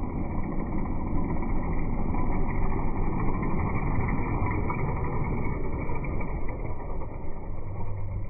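A motorcycle engine running as it passes close by, over a steady rumbling noise.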